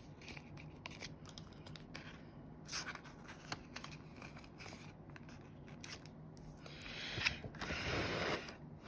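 Australian polymer banknotes being handled and counted out by hand: light crinkling and flicking, with a longer, louder stretch of rustling near the end.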